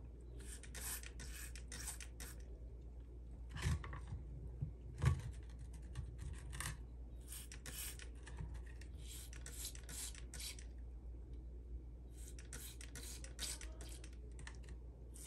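Trigger spray bottle misting potting soil in quick runs of short hisses, with two soft knocks about four and five seconds in.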